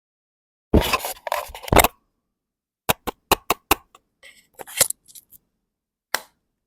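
Handling noise on a clip-on wireless microphone: about a second of rustling and rubbing on it, then a string of sharp clicks and taps.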